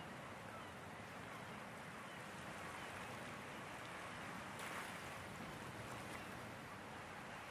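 Faint, steady wash of water from the Wadden Sea, a calm nature ambience, with a brief slightly louder rush about halfway through.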